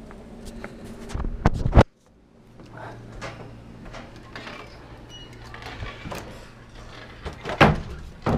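Camera handling and footsteps, with scattered clicks and knocks; the sound cuts off abruptly about two seconds in, then carries on quieter, with a sharper knock near the end as a door is reached and opened.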